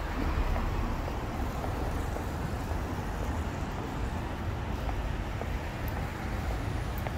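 Wind buffeting the microphone outdoors, a steady low rumble that rises and falls slightly.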